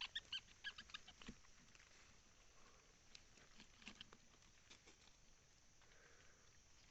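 Near silence with faint crackling and scattered small clicks, densest in the first second or so, then only occasional ticks.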